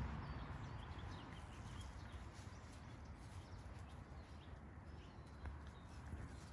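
Faint rustling and small clicks of Labrador puppies moving through dry leaves and brush, over a steady low rumble on the microphone.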